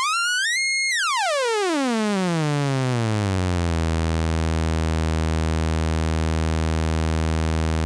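Eowave Orage analog complex oscillator's sawtooth output, its pitch gliding up to a high peak just under a second in, then sweeping back down over about three seconds. It then holds a steady low tone.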